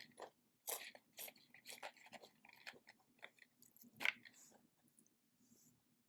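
A person chewing crunchy food close to the microphone, with irregular crisp crunches; the loudest bite comes about four seconds in, and the chewing thins out near the end.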